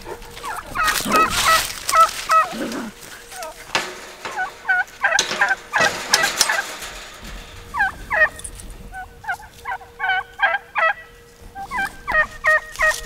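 Farm poultry calling: quick strings of short, pitched calls, repeated in clusters through most of the few seconds, with footsteps on dry grass.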